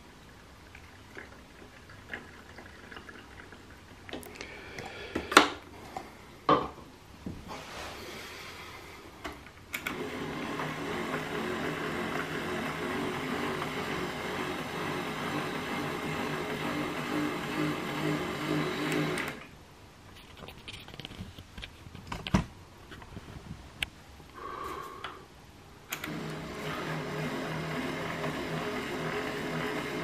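Casdon Hoover Electron 1100 De Luxe toy washing machine's small motor turning the drum with a steady whirr, stopping for several seconds and then starting again, as in a wash tumble. A few sharp clicks or knocks come before the drum starts.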